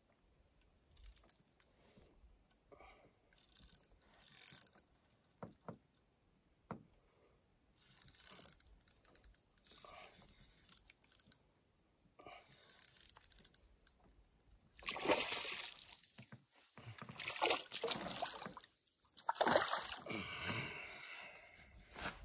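Water splashing beside a canoe: light, scattered clicks and small splashes at first, then louder and more frequent splashes from about two-thirds of the way through, as a hooked smallmouth bass splashes at the surface while it is played in near the boat.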